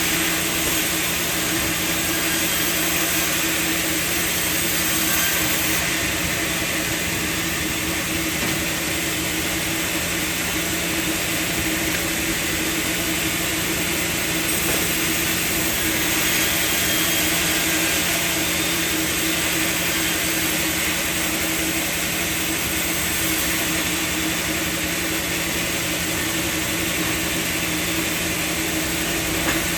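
Sawmill machinery running steadily: a constant mechanical hum over an even hiss, with no distinct cuts or impacts.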